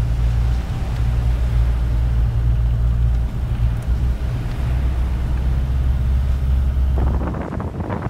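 Four-wheel-drive vehicle driving along a sandy desert track, heard from inside the cabin: a steady low engine and road rumble. About seven seconds in it gives way to wind noise.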